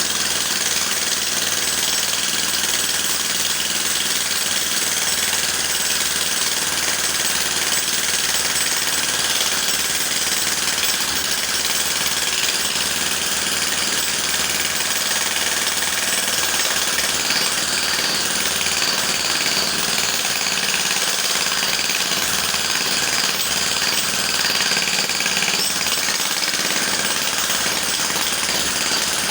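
Electric jackhammer hammering continuously and steadily.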